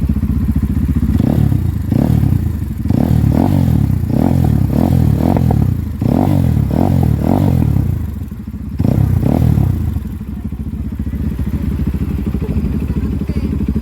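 UM Renegade Sport 300 motorcycle engine idling, then revved in a rapid series of short throttle blips from about a second in, before dropping back to a steady idle near ten seconds in.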